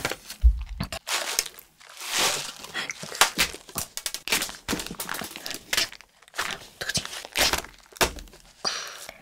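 Close-miked handling of a plastic sheet and a candy packet: crinkling and crackling with small taps on a wooden board, and a low thump about half a second in.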